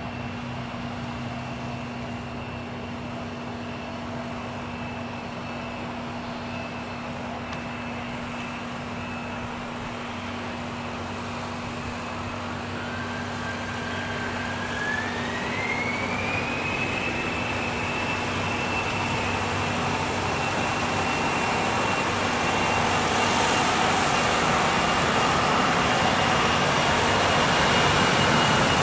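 Airbus A320-232's IAE V2500 turbofan engines whining as the airliner lines up. About halfway through, the whine rises in pitch and then holds as the engines spool up to takeoff thrust. The sound grows steadily louder as the takeoff roll begins.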